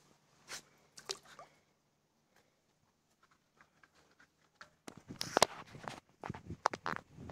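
A fox terrier's claws tapping and scrabbling on a foam bodyboard as she shifts her feet and paws at its edge. A few single taps come in the first second or so, then a busy run of taps and scrapes near the end.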